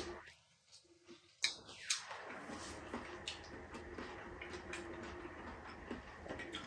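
Faint eating sounds: chewing and soft clicks of fingers picking food from a ceramic plate. About a second of dead silence near the start, then scattered small clicks.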